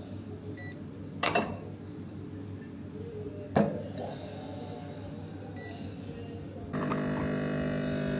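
Two sharp clinks as a small metal espresso cup and a coffee scale are set down on an espresso machine's drip tray, with two short faint beeps and a steady low hum. Acoustic guitar music comes in near the end.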